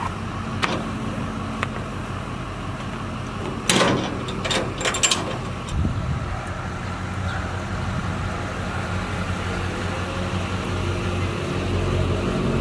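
Rollback tow truck's engine idling steadily, with a quick burst of metal clanks and rattles about four seconds in. The engine gets a little louder near the end.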